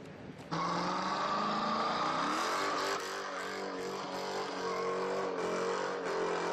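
Supercar engine running loud, starting abruptly about half a second in; its pitch climbs as it revs up, then holds fairly steady with a couple of sudden shifts.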